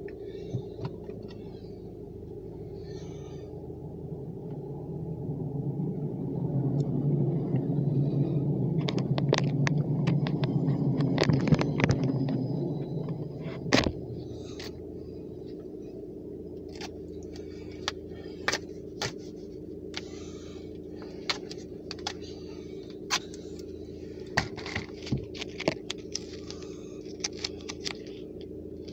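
Steady low hum inside a car with the ignition on. A louder rumbling noise swells up and stops with a sharp click about halfway through, followed by scattered light clicks.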